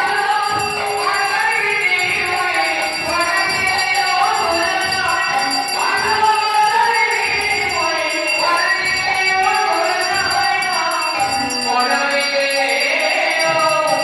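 Devotional song with several voices singing over metallic jingling percussion and a steady drum beat.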